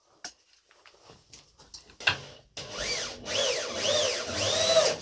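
Power drill running in the wood while boards are screwed together, its motor speeding up and slowing three times as the trigger is worked. A sharp knock comes just before it starts.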